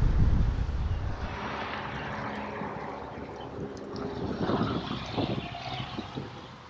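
Jet airliner passing over, a broad rushing noise with a steady hum that fades toward the end. Wind buffets the microphone in the first second or so.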